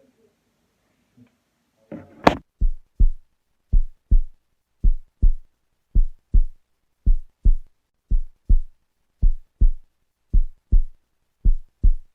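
Heartbeat sound effect: a single sharp hit about two seconds in, then deep double thumps repeating steadily, about one heartbeat a second.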